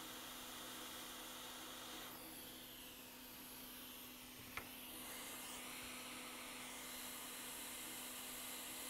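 Faint steady hiss of a hot air rework station blowing while a small surface-mount fuse is desoldered, over a low steady hum. The hiss thins about two seconds in, and a single light click sounds about four and a half seconds in.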